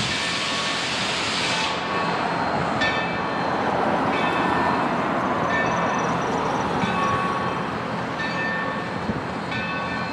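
Steam locomotive New Haven 3025 hissing steam low around its wheels, which cuts off sharply about two seconds in. After that a bell rings steadily, about once a second, over a softer steady hiss.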